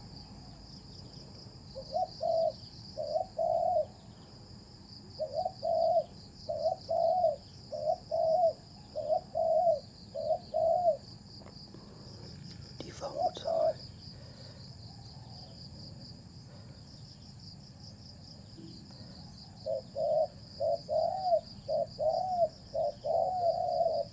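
Male spotted dove cooing in bouts of low, repeated coo notes separated by pauses of a few seconds. Under it runs a steady, high, pulsing insect trill.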